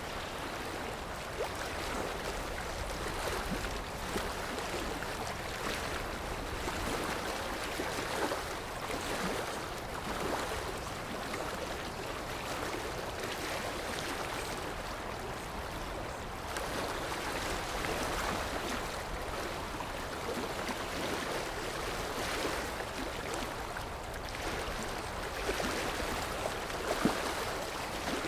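Sea surf: waves washing on a shore, a steady rushing that swells gently and eases off every few seconds.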